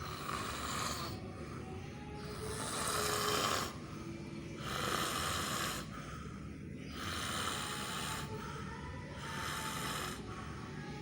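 A sleeping baby snoring, a noisy rasp on each breath, about one every two seconds; the loudest comes about three seconds in. The snoring is put down to an incorrect side-lying sleep position.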